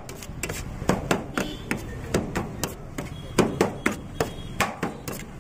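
Knife chopping sliced shawarma chicken, a quick irregular run of sharp strikes about three a second.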